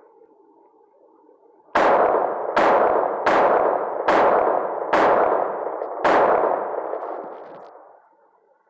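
Six shots from a Taurus Spectrum .380 ACP pocket pistol, fired at a steady pace a little under a second apart, each followed by a long echoing tail.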